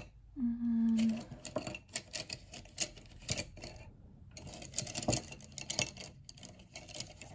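Wooden watercolour pencils being handled and tried out on paper: many short irregular clicks and scratchy strokes. A brief hummed "mm" comes near the start.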